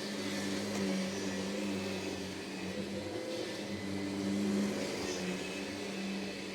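Vacuum cleaner running while being pushed across the floor: a steady motor hum whose pitch and loudness waver slightly.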